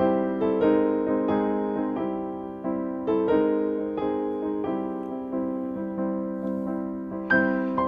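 Background music: slow, gentle piano notes struck one after another, each fading away.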